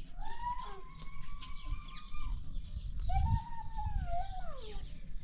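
Two long animal calls, one after the other, each held at a steady pitch for about two seconds and falling away at the end.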